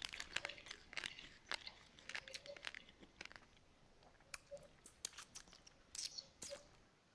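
Faint close-up crunchy chewing: a run of short sharp crunches, thick at first and thinning out later on.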